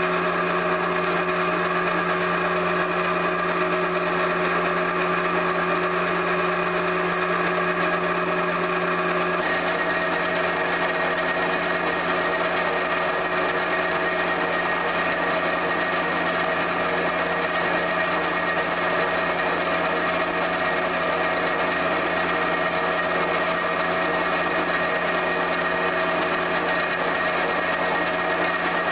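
Clay pug mill running: a steady motor and gear drone with several held whining tones. The mix of tones changes abruptly about nine and a half seconds in.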